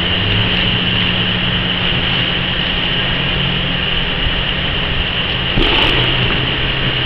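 Steady drone of running factory machinery, with a low hum under a bright, hissing whine. About five and a half seconds in, a short rustle of plastic sheeting rises over it as the bagged foam stack is swung onto the table.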